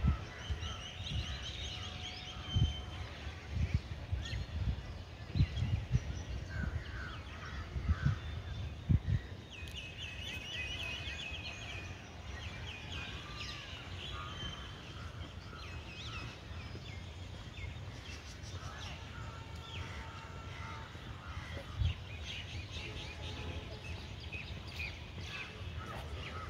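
Several birds chirping and calling among park trees, including a quick trill of repeated notes about ten seconds in. Low bumps hit the phone's microphone through the first nine seconds or so.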